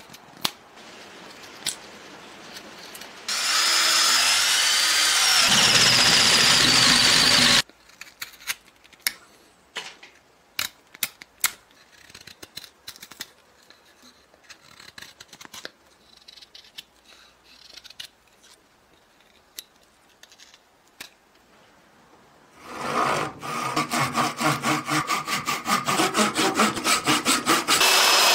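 A power tool runs loudly for about four seconds, then come scattered light taps and clicks, and about two-thirds of the way through a belt sander starts grinding a block of wood, with a fast regular pulsing.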